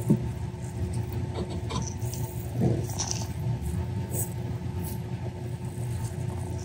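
Steady low mechanical hum, with a short knock at the very start and another brief sound nearly three seconds in.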